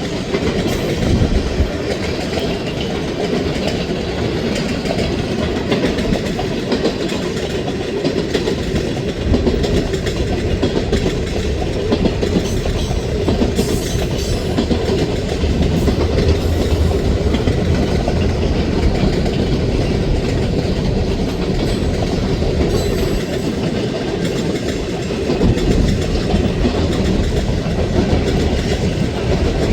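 Freight train's cars rolling past, a steady rumble with wheels clicking over the rail joints.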